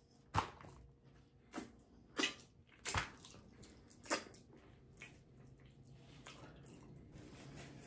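Faint eating and table-handling noises: about six short, separate clicks and taps, some of them wet-sounding, over the first five seconds, then near quiet with a low hum.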